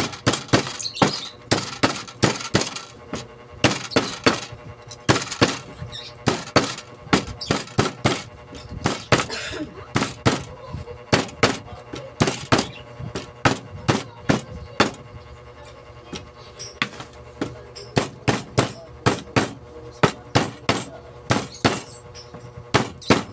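Rubber mallet tapping newly wound copper wire down into the slots of an alternator stator. Rapid sharp taps, about two to three a second, with a few brief pauses.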